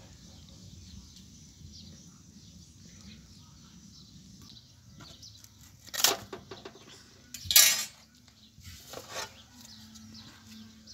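Metal tongs and flatbread clattering against a round metal tray, three short bursts about six, seven and a half (the loudest) and nine seconds in, after a low background.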